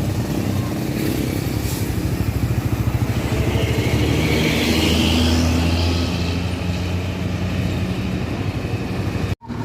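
A tour bus's diesel engine running as it passes close by, growing louder toward the middle with a hiss of air and tyres, then fading a little. The sound cuts out abruptly near the end.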